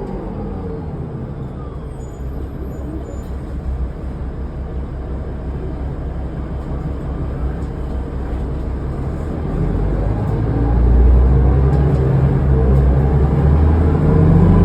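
Interior of a 2005 New Flyer D40LF diesel transit bus under way, with a steady low drivetrain rumble. About ten seconds in, the rumble swells and gets louder as the bus pulls away or accelerates.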